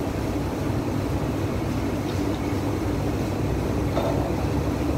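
Steady low background rumble, with a couple of faint light taps about two and four seconds in.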